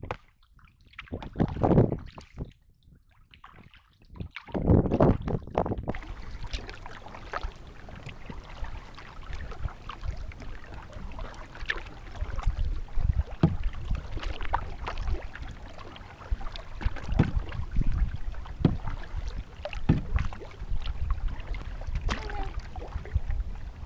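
A canoe being paddled: paddle strokes swishing in the water and knocking against the hull at an irregular pace. A steady hiss of water and wind comes in about six seconds in.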